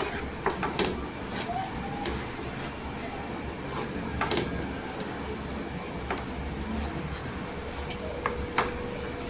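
Scattered light clicks and knocks of kitchen utensils being handled, over a low steady hum.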